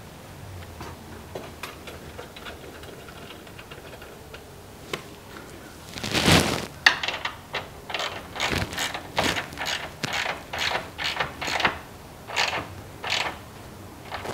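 Hand socket ratchet turning a mounting bolt into a drawer-module bracket: faint ticks at first, then from about six seconds in a loud clatter and a steady run of ratcheting strokes, about two a second.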